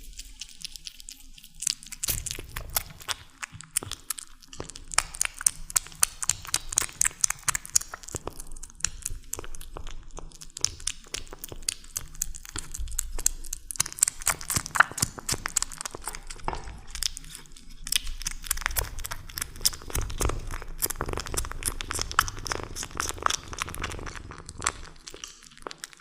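Kittens eating tuna: a dense run of rapid wet smacking, licking and chewing clicks.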